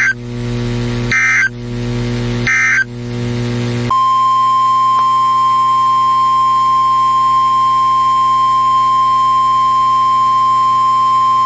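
Two short screeching bursts of Emergency Alert System (SAME) digital data tones, the end-of-message code that closes a weather warning. About four seconds in, a single steady alert tone starts and holds to the end: the weather radio warning alarm that announces the next warning. A low steady hum runs underneath.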